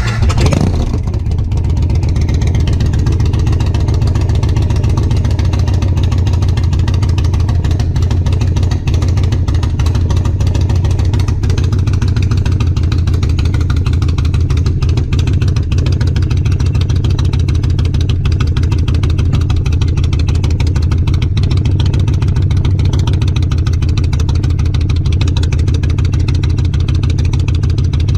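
Yamaha Road Star Warrior 1700's air-cooled V-twin running at a steady idle just after starting, heard close up through a Pacific Coast Star 2-into-1 Roadster exhaust with a Vortex race baffle.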